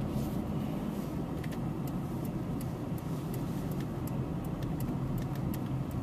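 Car running and rolling along, heard from inside the cabin: a steady low rumble of engine and road noise with scattered faint clicks.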